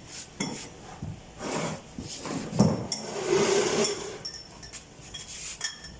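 Metal hand tools clinking and knocking on car brake and wheel parts: a string of short sharp clinks, with one louder knock about two and a half seconds in.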